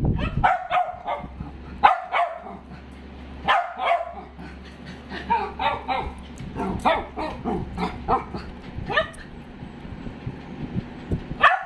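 Dachshund barking repeatedly: short, sharp barks in quick runs with brief pauses between them.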